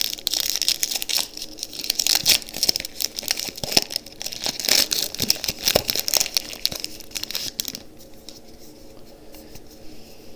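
Foil booster pack wrapper crinkling and tearing as it is ripped open, a dense crackle for about eight seconds. It then dies down to faint handling ticks near the end.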